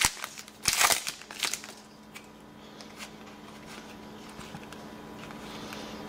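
Foil trading-card pack torn open, crinkling in a few sharp bursts in the first second and a half, then the cards are handled and shuffled quietly.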